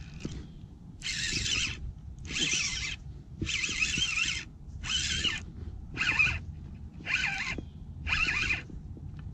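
Spinning reel being cranked in short spurts: a whirring buzz about once a second with brief pauses between turns, over a low rumble of wind on the microphone.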